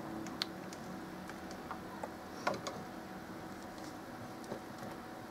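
A few small sharp clicks and taps as a cable connector is plugged into a smartphone and the phone is handled in its clip-type holder, the loudest about half a second and two and a half seconds in.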